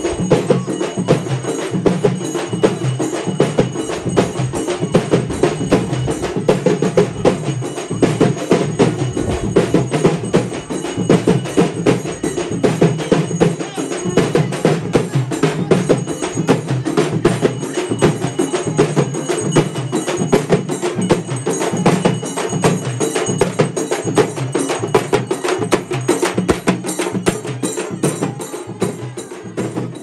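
Procession percussion: drums and large brass hand cymbals beaten together in a fast, steady rhythm.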